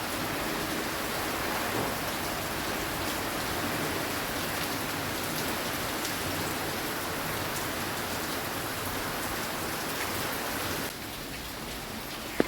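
Steady rain from a hurricane, falling without a break, a little quieter from about eleven seconds in.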